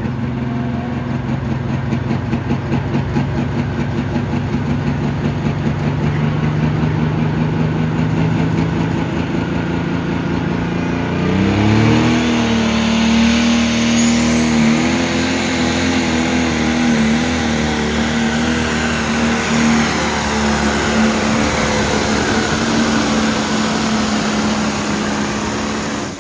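Pro Stock pulling tractor's turbocharged diesel engine running steadily at the line, then revving up sharply about eleven seconds in and running hard at high revs as it pulls the weight-transfer sled down the track, with a high whine rising briefly soon after. It drops off right at the end as the pull finishes.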